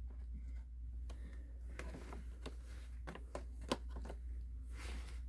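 Faint scattered clicks and taps of plastic vacuum-cleaner housing parts being handled and fitted together, over a steady low hum.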